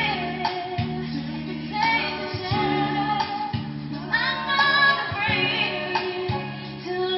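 Recorded music with a female singer, played through a JBL VRX932LAP line array speaker system: sung phrases with vibrato over a steady bass line.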